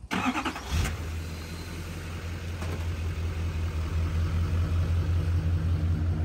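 GMC Sierra 2500HD pickup's engine starting up, catching in a short burst in the first second and then settling into a steady, deep idle.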